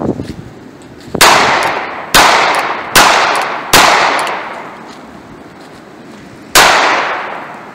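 North American Arms mini revolver firing .22 Magnum (.22 WMR) rounds: five sharp gunshots, four in quick succession under a second apart and a fifth after a pause of nearly three seconds, each ringing off in echo for about a second.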